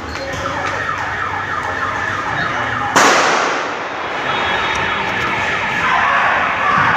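An electronic siren sounding in quick, repeated pitch sweeps. About three seconds in, a single loud gunshot cuts across it and echoes.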